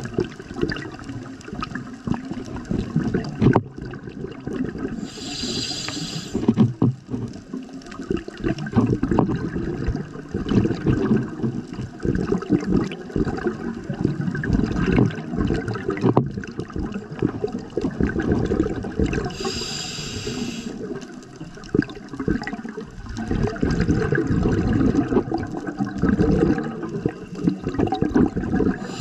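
Scuba diver's breathing heard underwater through the regulator. Twice, about fourteen seconds apart, there is a short hiss of inhalation through the demand valve, and between them the long gurgling rumble of exhaled bubbles.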